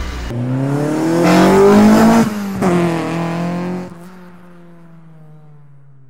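Car engine revved while stationary: the pitch climbs for about two seconds, drops back, and then settles toward idle, much quieter from about four seconds in.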